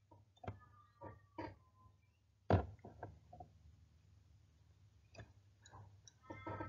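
Quiet pause in a small room broken by a few faint, scattered clicks and knocks, with one sharper click about two and a half seconds in.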